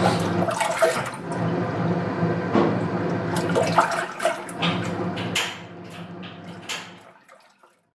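Washing machine running with a steady motor hum and water sloshing, with scattered clicks and knocks over it; the whole sound fades out near the end.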